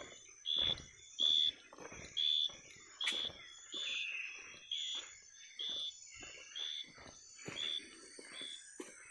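Night forest insects: a short high chirp repeating evenly about once every 0.8 s over a steady higher insect drone, with footsteps on the forest floor.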